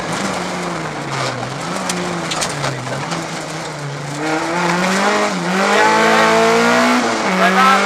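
Rally car engine heard from inside the cabin, revs falling and rising through a bend, then pulling hard and getting louder. The revs dip briefly twice during the hard pull as gears change.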